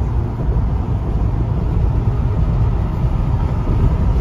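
Steady low rumble of road noise inside a car's cabin while it drives along a highway.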